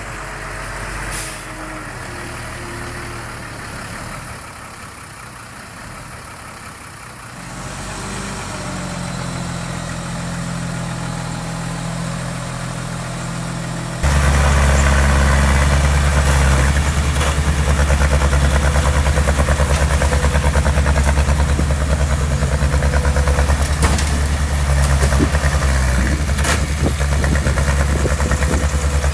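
Heavy construction-machine diesel engine running steadily. It becomes suddenly much louder and deeper about halfway through.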